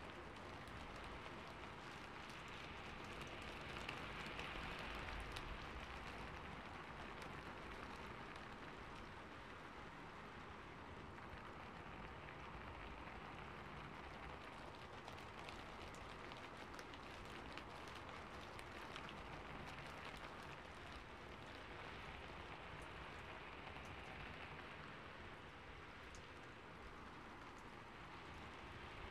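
Faint steady rain, an even patter dotted with many small drop ticks.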